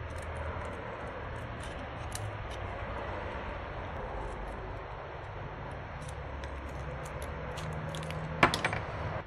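Flat screwdriver prying and scraping at small metal parts in a rusty toy pistol frame, with scattered light metallic clicks and one sharp click near the end.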